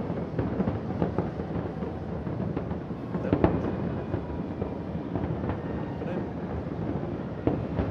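Aerial fireworks shells bursting in a dense run of bangs and crackles over a steady rumble, with a sharper bang about three and a half seconds in.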